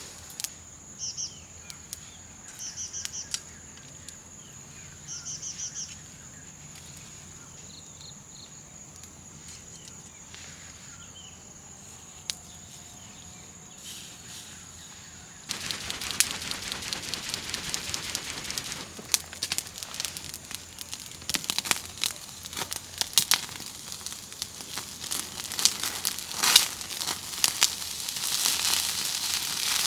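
Food sizzling and crackling as it cooks over a campfire, starting suddenly about halfway through and growing busier toward the end. Before that there are only a few short high bird chirps over a steady high-pitched whine.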